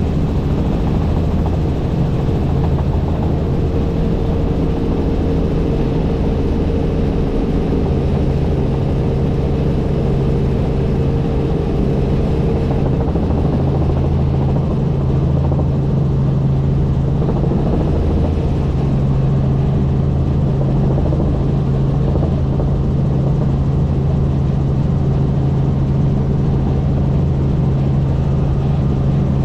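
Helicopter in level flight: a steady drone of rotor and engine with a low hum, unchanging throughout.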